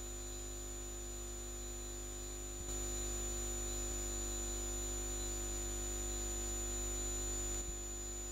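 Steady electrical hum and hiss with a thin high whine, and no drum hits. It gets slightly louder about three seconds in and drops back near the end.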